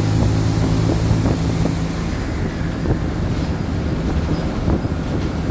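Mercedes-Benz OF-1722M city bus under way, heard from inside the cabin. Its steady diesel engine hum dies away about a second and a half in, leaving road rumble and frequent short rattles and knocks.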